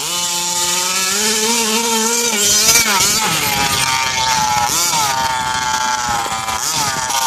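Losi DBXL gas RC buggy's two-stroke engine with a Dominator tuned pipe, running at speed and revving up and down several times, with quick sharp throttle blips about five seconds in and again near the end.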